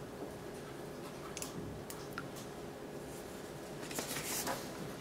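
Quiet room tone with a faint steady hum, a few tiny ticks, and a brief soft rustle of hand movement about four seconds in.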